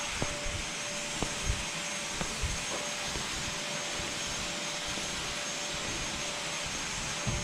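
Steady whirring motor noise with a constant thin whine, broken by a few soft knocks and bumps.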